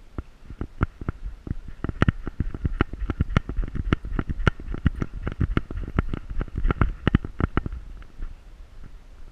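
Camera mount knocking and rubbing on a dog's back as it moves: an irregular run of sharp clicks and thumps, several a second, over a low rumble.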